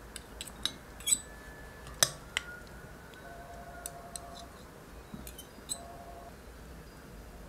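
Metal salad servers clinking against a glass mixing bowl and a ceramic serving dish while salad is scooped and served: a string of sharp clinks, the loudest about one and two seconds in, a few leaving a brief ring.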